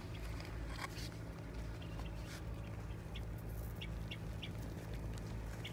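Small bird chirping from inside its burrow in a sandy bank as it is twisted out on a wire: about five short, high chirps, starting about three seconds in, over a steady low hum.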